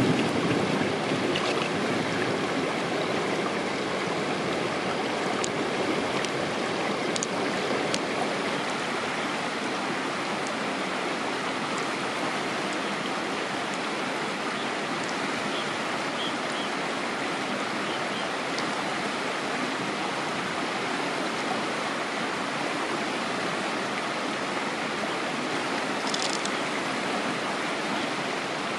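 Shallow stream running over stones: a steady rush of water, with a few faint clicks scattered through it.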